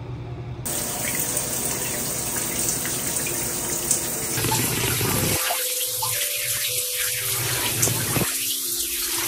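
Handheld shower head running, its spray hissing steadily against the tiled wall; the hiss starts about half a second in.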